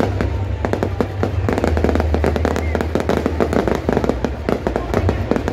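Aerial fireworks bursting overhead: a rapid, uneven string of bangs and crackles with no break.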